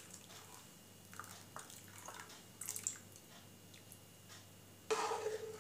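Steel spoon stirring hot milk in a metal pot as lemon juice curdles it into chhena, with small liquid swishes and clicks of the spoon against the pot. A louder sound comes in near the end.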